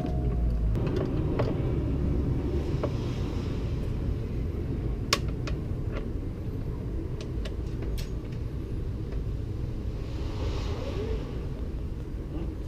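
A steady low rumble, with scattered sharp clicks of small metal hardware being worked into place while a hood latch is fitted.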